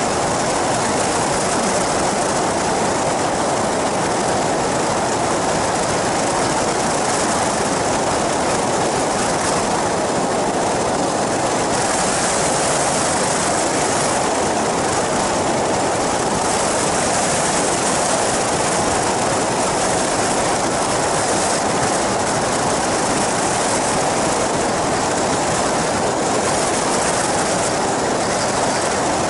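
Flying boat's pusher-propeller engine running steadily in flight, heard from on board as a dense, unbroken drone mixed with rushing wind.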